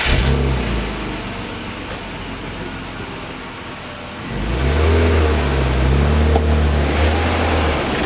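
BMW E36 engine just after starting, running at idle, then revved about four seconds in and held up for about three seconds before dropping back.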